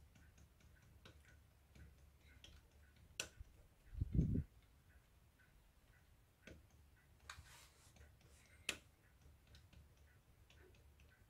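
Faint, quick ticking of a Victor BR-8600 VCR's loading gear train turned by hand, driving the two tape-loading arms down. A few sharper clicks and one dull thump about four seconds in, the loudest sound.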